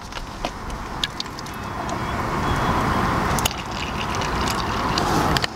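Water pouring from a bottle into a paper cup, a steady splashing stream that grows louder as it goes, with a few light clicks.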